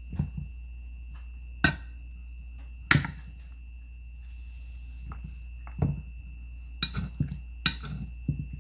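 Metal tongs clicking and knocking against a glass casserole dish while chicken drumsticks are turned over, in irregular single strikes with several close together in the second half.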